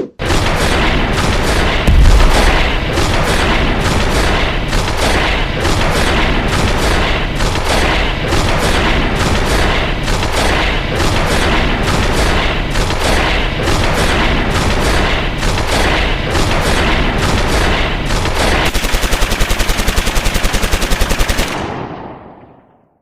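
Gunfight sound effect: continuous, dense volleys of gunfire with a heavy boom about two seconds in. Near the end comes a fast, even burst of machine-gun fire, and then the gunfire fades out.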